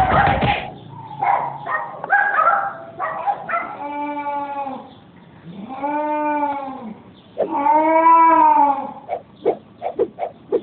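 Cats yowling in a fight standoff: rough growling calls, then three long drawn-out yowls, each rising and falling in pitch, with a few short sharp cries near the end.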